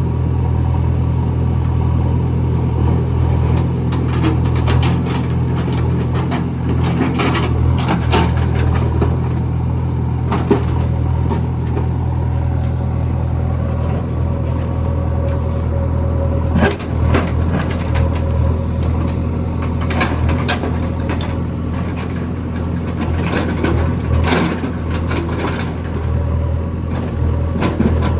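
JCB backhoe loader's diesel engine running steadily under load while it digs, with scattered knocks and clatter from the bucket and arm working through it.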